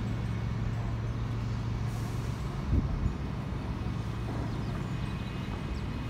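Steady low engine hum, with a single thump a little under three seconds in.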